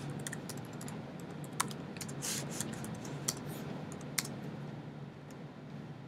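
Typing on a computer keyboard: irregular key clicks at an uneven pace, with a few sharper keystrokes, over a faint steady low hum.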